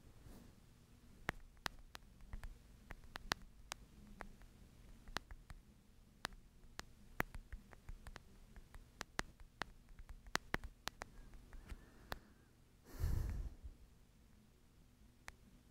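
Light, sharp clicks and taps at an irregular pace, and one short breath-like rush of air about thirteen seconds in.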